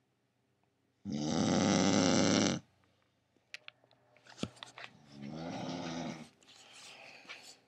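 A woman snoring in her sleep. There is one loud snore about a second in, then a few short clicks and snorts, then two softer snoring breaths.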